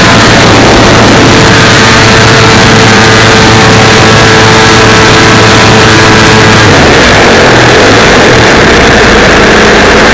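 The 55cc gas engine of a 30% scale radio-control Yak 54 aerobatic plane running, picked up loud by an on-board camera's microphone. It holds a steady drone, then about two-thirds of the way through its pitch breaks up and wavers.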